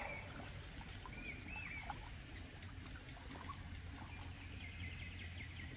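Quiet rural farm ambience: a steady, high insect drone with a few faint, short bird chirps about a second and a half in, and a quick run of faint ticks near the end.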